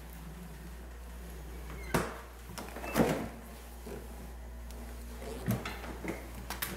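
The doors of a Sharp two-door refrigerator being opened and shut. There is a sharp knock about two seconds in, a louder one about a second later, and several smaller knocks near the end.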